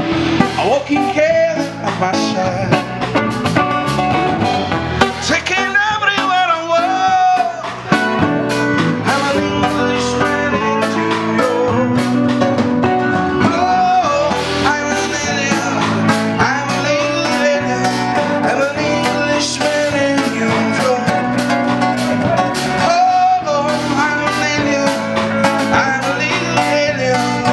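A live blues band playing: electric guitars and bass guitar, with a man singing into a microphone.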